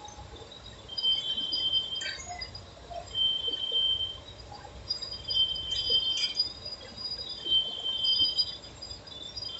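Heavy engine lathe cutting a large steel roll, with a high, thin squeal from the cut that comes and goes at a steady rhythm about every two seconds. A couple of sharp clicks sound in between.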